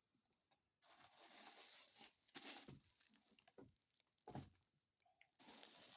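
Faint crinkling and rustling of packaging being handled, in several short spells with a sharper crackle about four seconds in.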